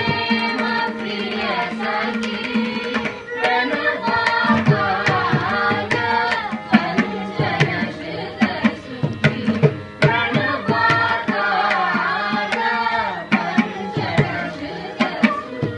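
A group of singers performing a Carnatic song together over a steady drone, accompanied by a mridangam whose strokes come thicker and faster in the second half.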